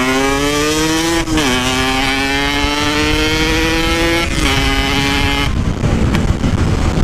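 Yamaha RX-King two-stroke single-cylinder motorcycle engine accelerating hard through the gears. Its pitch climbs, drops at upshifts about a second in and about four seconds in, and climbs again. About five and a half seconds in the throttle closes, leaving wind and road noise.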